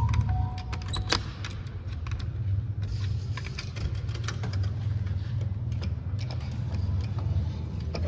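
Quarters clinking into a claw machine, with two short electronic beeps near the start and scattered small clicks over a steady low machine hum.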